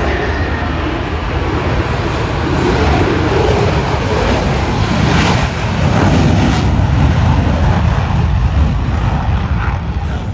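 Jet aircraft flying past: a loud, steady roar that builds to a peak and eases off near the end.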